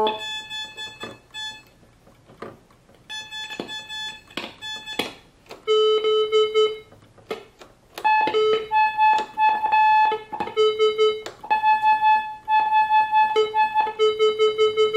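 ARP Pro Soloist monophonic synthesizer playing single notes, some rapidly repeated, with clicks as the voice tabs are pressed. The tone keeps dropping out and changing character: the voices cut in and out and jump from one sound to another because the voice-selection switches are dirty and failing.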